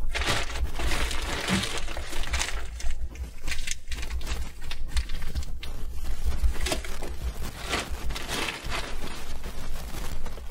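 Plastic shopping bag rustling and crinkling in irregular bouts as food packets and a jar are pulled out of it.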